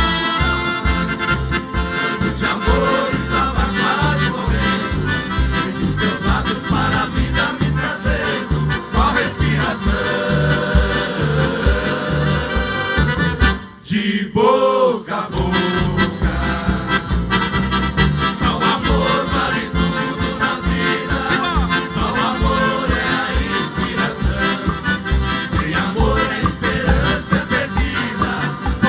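Live Brazilian country band music, instrumental, over a steady beat. The music breaks off briefly about halfway through, then resumes.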